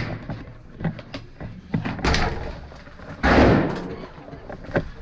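Heavy doors banging shut, with the loudest slam about three seconds in and a smaller thud about a second before it, among lighter knocks and clatter.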